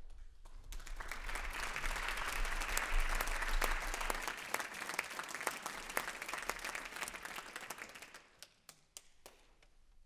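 Audience applauding: the clapping swells over the first two seconds, holds, then thins to a few scattered claps and dies away about eight or nine seconds in.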